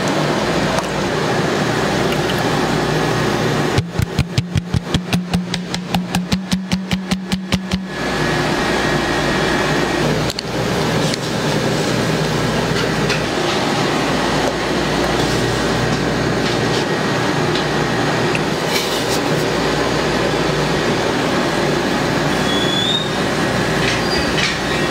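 Steady machine noise throughout. A few seconds in it breaks into a stretch of fast rhythmic pulsing, about five a second, over a low hum, then goes back to the steady noise.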